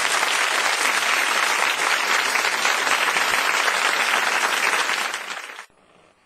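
Audience applause, even and sustained, that ends abruptly about five and a half seconds in.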